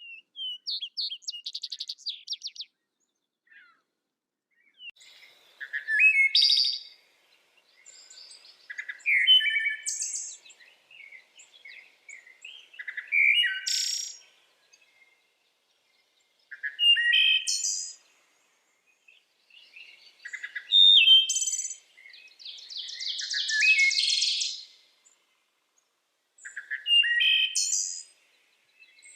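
A songbird singing in short, varied phrases of whistled and chirping notes, each a second or two long and a few seconds apart. One longer phrase about 23 seconds in ends in a fast trill.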